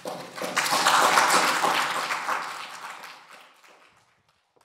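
Audience applause from a lecture-hall crowd, rising quickly, at its fullest about a second in, then dying away by about four seconds in.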